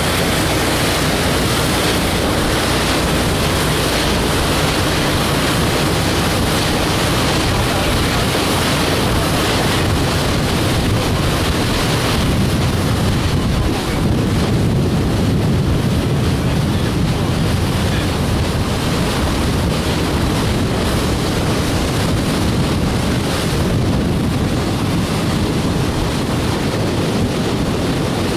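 Steady wind noise on the microphone over the rush of water and engine of a moving boat at sea.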